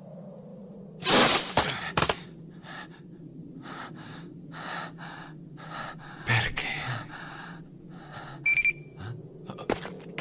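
A man panting hard in short gasps, about two a second, after a loud rushing burst of noise about a second in. A brief high-pitched beep sounds near the end.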